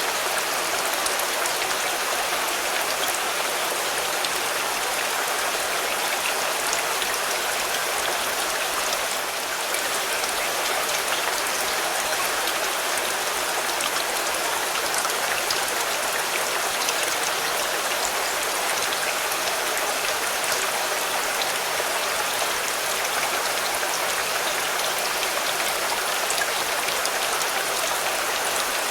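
Steady rain falling on a car, countless drops pattering on the body with an even hiss.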